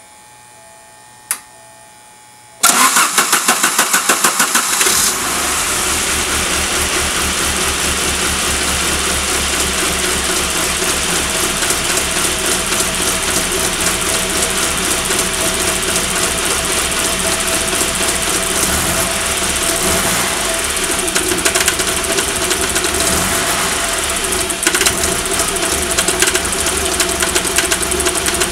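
1990 Saab 900S four-cylinder engine cranked by the starter for about two seconds, then catching and running. It sounds bad because mineral oil from a smoke machine spilled into the intake, which is expected to level out as the engine runs.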